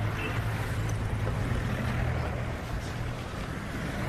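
Steady street traffic noise: an even wash of sound with a low hum underneath and no distinct events.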